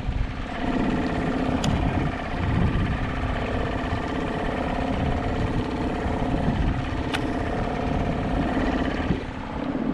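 Suzuki 2.5 HP outboard motor on an inflatable raft running at a steady speed. Its even engine note fades out about nine seconds in.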